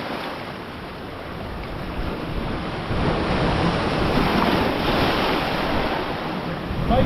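Sea surf breaking on the shore, a steady rush that swells about three seconds in as a wave comes in, with wind buffeting the microphone.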